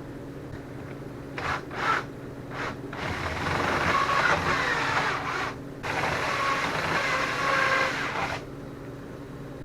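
DeWalt cordless drill run in two stretches of about two and a half seconds each, after a few short clatters. The owner takes it to show that the drill battery needs recharging.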